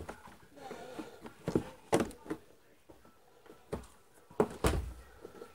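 Plastic retaining clips of an Acer Aspire Z3-605 all-in-one's back cover snapping loose as a plastic pry tool works along the case seam: scattered sharp clicks and knocks, with a heavier knock near the end.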